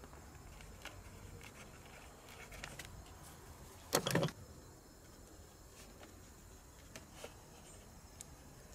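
Faint scratching and small ticks of a ballpoint pen writing on paper, with one brief louder burst of noise about four seconds in.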